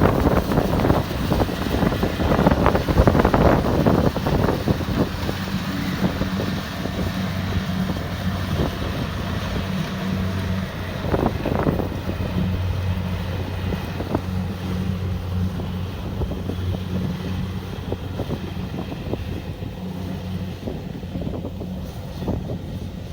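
Kubota DC-70 Plus combine harvester running steadily as it works, its diesel engine drone under a mechanical clatter. The clatter is busier in the first few seconds and again briefly around the middle.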